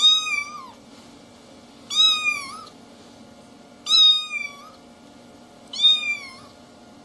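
A kitten meowing: four short, high-pitched meows about two seconds apart.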